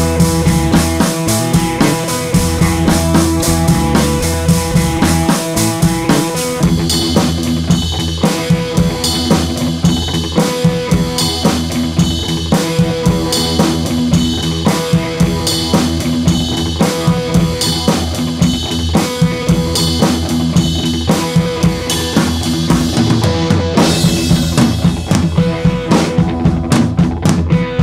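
Background music: an upbeat track with a steady drum beat over sustained instrument tones, with a rising sweep near the end leading into sharper drum hits.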